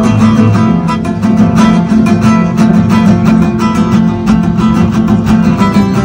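Music: acoustic guitar played fast, with dense plucked and strummed notes at an even pace.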